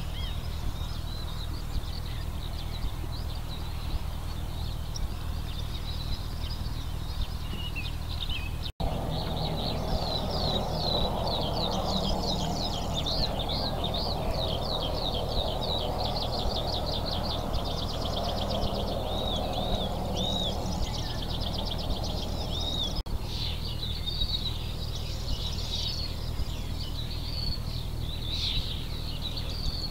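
Outdoor ambience of many songbirds singing, with quick chirps and trills overlapping, over a steady low rumble. Just after a brief dropout about nine seconds in, the birdsong becomes busier.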